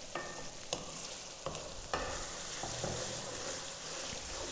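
Okra and tomatoes sizzling in an aluminium pot as a wooden spoon stirs them, with a few sharp knocks and scrapes of the spoon against the pot in the first two seconds.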